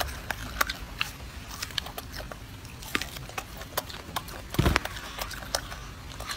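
Golden snub-nosed monkey eating a citrus slice: irregular short wet clicks and smacks of biting and chewing, with a dull thump about four and a half seconds in.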